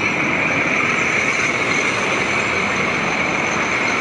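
Hino Ranger SG 280 TH's J08E six-cylinder common-rail diesel engine idling steadily.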